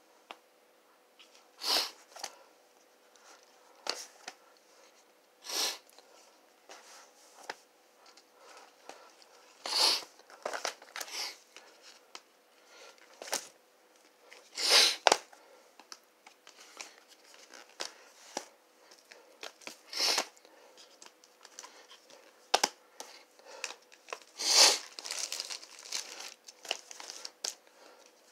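Vinyl LP record jackets in plastic shrink-wrap and sleeves crinkling and rustling as they are flipped through one by one in a stack, in short irregular bursts every few seconds.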